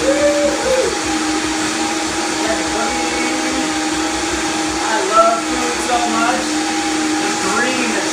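Vitamix blender running at full speed, blending a green smoothie: a loud, steady motor whir with a constant pitch.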